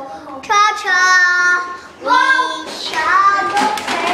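Children's high voices singing in drawn-out, wavering notes, about three phrases with short breaks between them.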